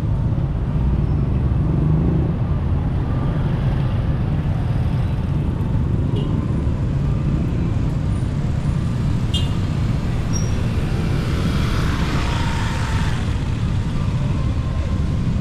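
Street traffic of motorcycles and motorcycle tricycles, a steady low engine rumble throughout. A hiss swells and fades about twelve seconds in.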